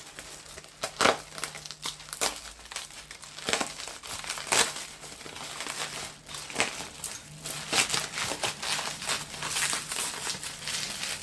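Packing wrap crinkling and crackling in irregular bursts as hands unwrap a crystal from its packaging.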